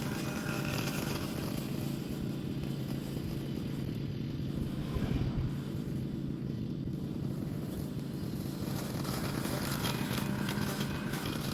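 A lawn mower running steadily while cutting grass, a constant low hum at one pitch with no change in speed.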